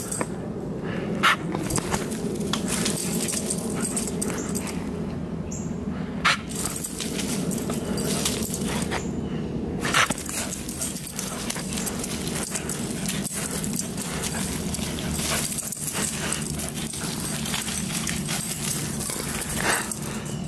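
Greyhound sprinting and spinning over dirt and dry leaves, paws scuffing and thudding, with a few sharp knocks as she dashes by, over a steady low hum.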